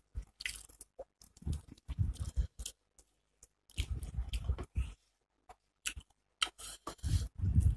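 Close-miked chewing of a mouthful of rice and hilsa fish, with wet mouth clicks and smacks coming in bouts of about a second, separated by short pauses.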